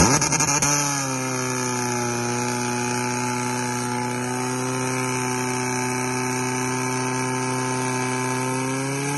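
Portable fire pump's engine revving up, then running at full throttle with a steady high note while it pumps water into the hose line. The pitch sags a little early on and creeps up near the end.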